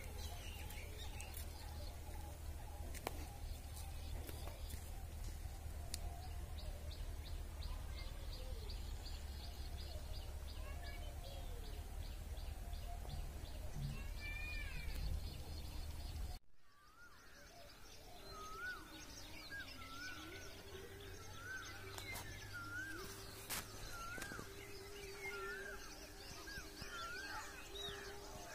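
Outdoor farm-field ambience with a low rumble and birds calling. About two-thirds of the way in the sound cuts abruptly to a quieter take, where a bird repeats a short rising-and-falling chirp roughly once a second.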